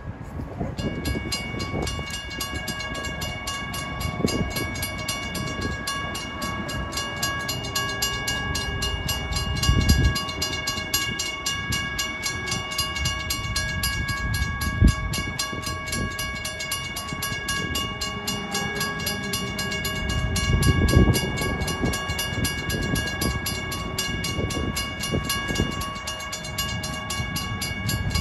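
Railroad crossing warning bell ringing steadily and rapidly as the crossing signals flash for an approaching train, with a few low thumps and rumbles underneath.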